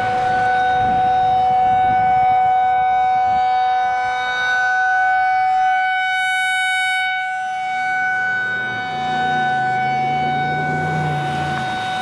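Outdoor tornado warning siren sounding a steady held tone with a lower second tone beneath it, over a low rumble.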